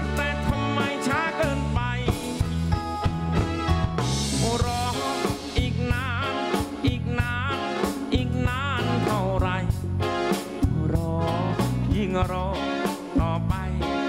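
A live band plays a song with drum kit, electric and acoustic guitars and bass, and a male lead voice sings over it.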